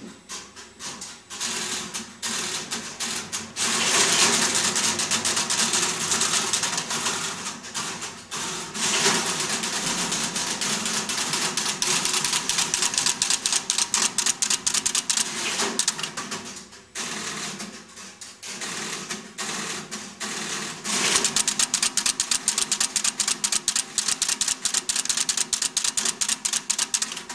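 NEC NC100 crossbar telephone exchange working: relays and crossbar switches clattering in rapid runs of clicks as calls are set up, with a couple of brief lulls.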